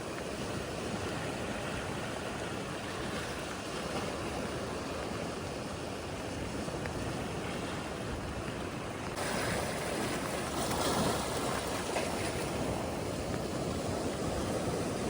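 Sea surf: waves washing on the shore as a steady rushing noise, turning a little louder and fuller about nine seconds in.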